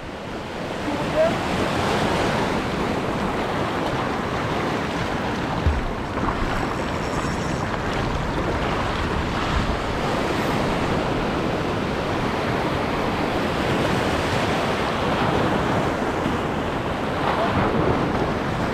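Surf washing steadily over a shallow reef, with wind buffeting the microphone.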